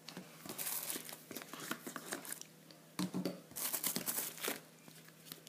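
Packaging crinkling and rustling as it is handled, in two spells of about two seconds each, the second starting about three seconds in.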